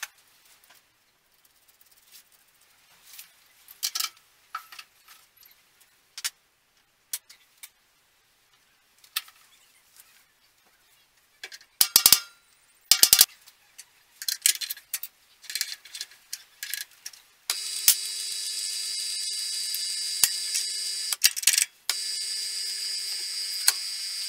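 Metal clicks and knocks as a drill bit is fitted into a milling machine's chuck, sharpest about halfway through. About two-thirds of the way in, the mill's spindle starts and runs with a steady hum and hiss, cuts out for a moment, and starts again.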